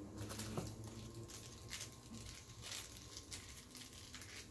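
Plastic bag wrapping crinkling as it is handled, a quick irregular run of short crackles.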